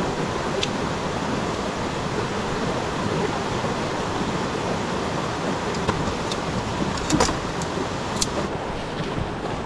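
Steady rushing of a river. A few light clicks near the end, as sections of a tent pole are fitted together.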